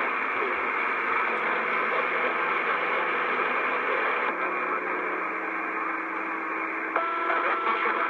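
CB radio receiver hissing with steady static, a band of noise cut off above about 3 kHz as through the set's speaker. A low steady tone comes in about four seconds in, and a higher whistling tone joins near the end.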